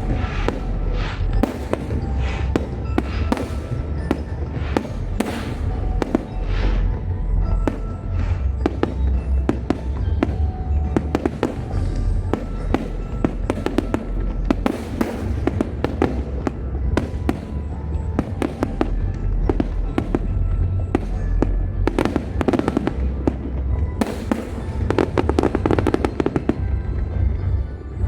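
Fireworks bursting in quick succession: a dense, unbroken run of bangs and crackles over a continuous low rumble, with music playing alongside.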